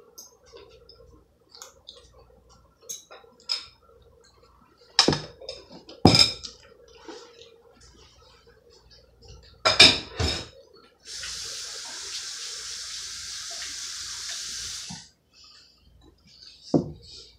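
Dishes and pots clattering and knocking several times, then water running steadily from a kitchen tap into the sink for about four seconds before it is shut off.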